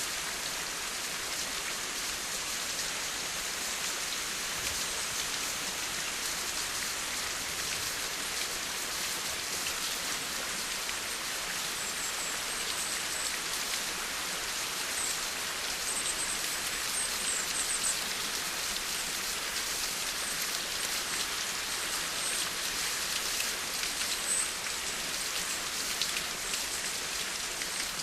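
Steady rain falling, a dense patter of drops hitting a surface over an even hiss.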